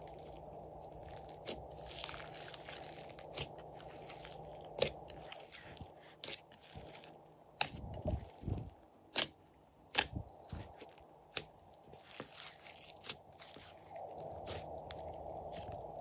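Glossy slime being stretched, pressed and folded by hand with glitter and confetti mixed in: sticky pops and crackles, with scattered sharp clicks, most of them in the middle of the stretch.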